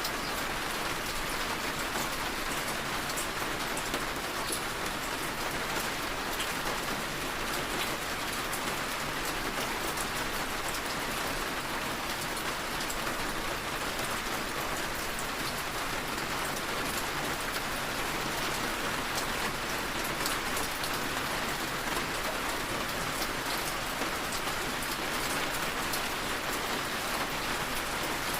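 Steady rain falling on a surface, a continuous hiss with many fine drop ticks.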